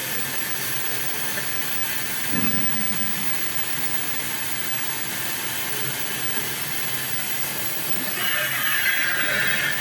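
CNC plate sawing and milling machine running with a steady hiss; about eight seconds in, a louder, higher-pitched noise comes in.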